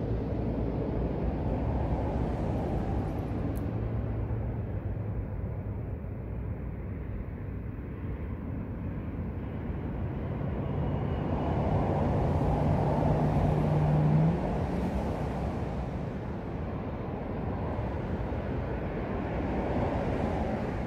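Road vehicle noise: a steady low rumble, with an engine hum that builds and then cuts off suddenly about two thirds of the way through.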